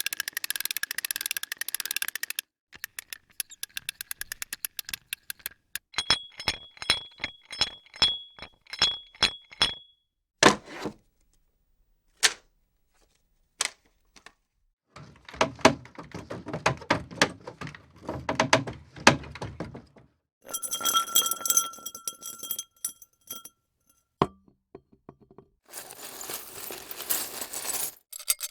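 A run of separate foley sound effects, one after another. A scraping rub comes first, then a quick series of taps carrying a faint ringing tone and a few single knocks. A long dense rattle follows, then metallic clinks with a ringing tone, a single click, and a rustling scrape at the end.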